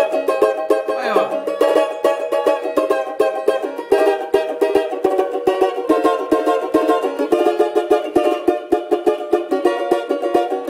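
Brazilian samba banjo (banjo-cavaco) with side sound holes, strummed hard with a pick in a fast, steady samba rhythm, the chords changing every second or so. It is being struck loud to show off its volume.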